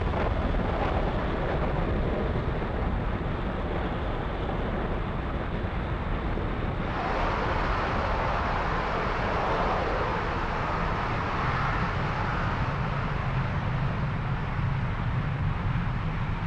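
Falcon 9 first stage's nine Merlin 1D engines heard during ascent as a steady deep rumble. About seven seconds in, a brighter hiss joins it.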